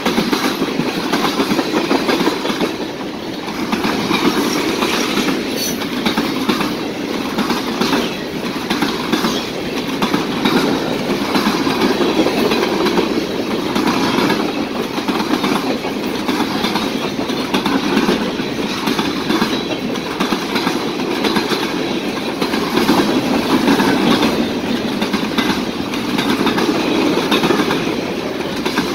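Freight cars of a passing mixed freight train rolling by at speed: a steady rumble of steel wheels on rail, with a clacking that repeats as the wheel sets go by.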